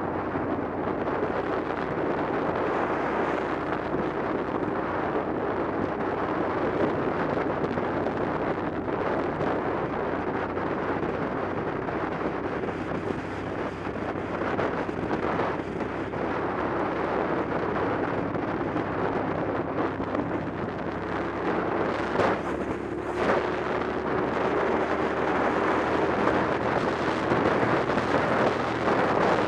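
Motorcycle riding at speed: a steady rush of wind over the microphone, with the engine's even hum underneath.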